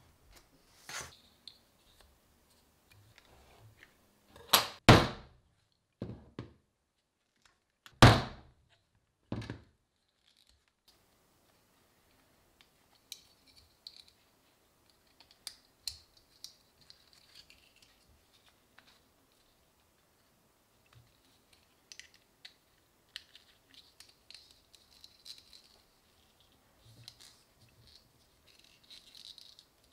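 Handling sounds from leatherwork: a few loud knocks on the work surface a few seconds in, then many light metallic clicks and rustles as leather pieces are worked onto the wire handles of a steel binder clip.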